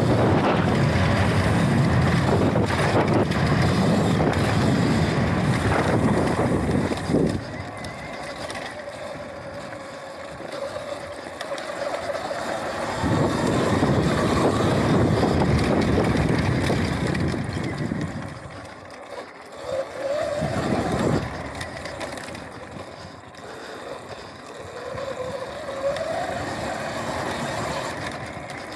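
Sur-Ron Light Bee X electric dirt bike being ridden over dirt: heavy wind rush on the microphone with tyre rumble, loudest at the start and again midway. A rising motor whine comes through twice in the second half as the bike accelerates.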